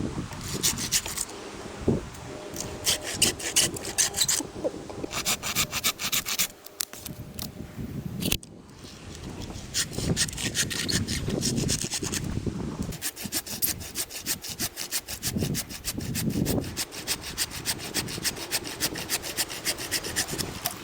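Hand saw cutting through wood in quick, rhythmic rasping strokes, in runs broken by short pauses, with a brief stop about eight seconds in.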